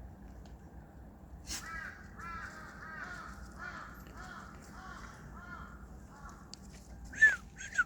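An animal's calls: a run of about eight short rising-and-falling calls, then two loud, sharp falling cries near the end.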